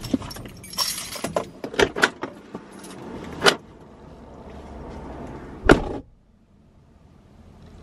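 Driver getting out of a parked Jeep: a string of clicks and rattles of keys and fittings, a louder click, then the driver's door shut with one sharp thud about six seconds in.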